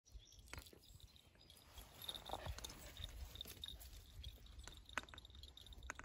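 Faint birdsong: short, high chirps repeated over and over. A few sharp clicks sound close by, over a low rumble.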